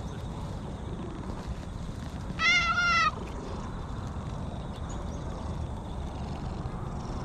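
An orange tabby cat meows once, a short call of under a second, about two and a half seconds in.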